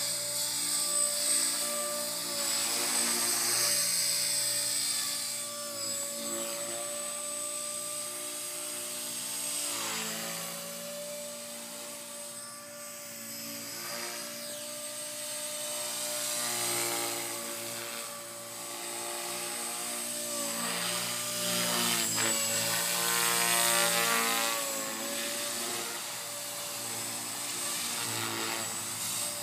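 Blade 450X electric RC helicopter flying 3D manoeuvres: a steady whine from its motor and rotor blades. The pitch and loudness rise and fall as the helicopter swoops and changes direction, with brief dips in pitch now and then.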